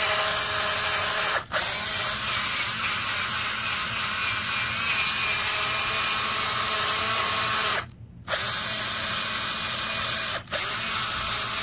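Cordless drill spinning a wire wheel brush against concrete pavers, scrubbing stains off the surface. It runs steadily with a motor whine and the scratch of the wire bristles, stops briefly three times when the trigger is released, and cuts off at the end.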